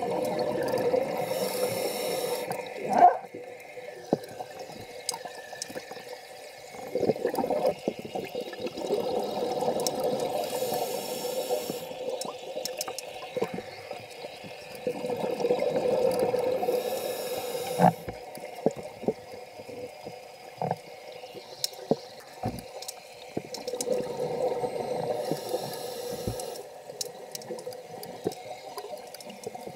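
Scuba diver breathing through a regulator underwater: a bubbling rush of exhaled air comes roughly every seven or eight seconds, about four breaths in all, with a thinner high hiss between them and scattered sharp clicks.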